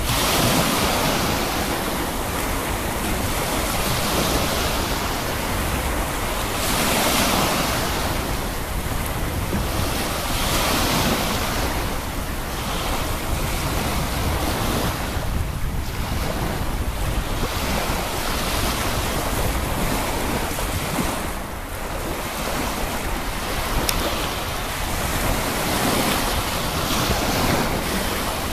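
Sea waves washing in, swelling and easing every few seconds, with wind buffeting the microphone.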